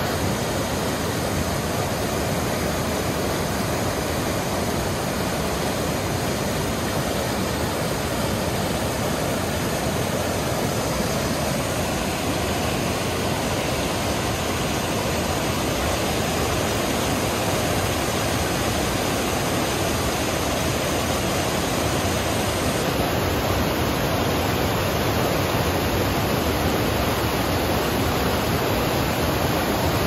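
Mountain river rushing over boulders in whitewater rapids: a steady, loud rush of water.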